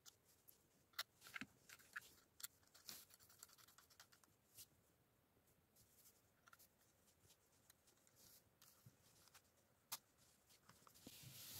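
Near silence with faint scattered clicks and light taps of small parts being handled: a grinding-stone bit taken from a plastic accessory box and fitted into a cordless mini grinder's collet. A soft rising noise comes in near the end.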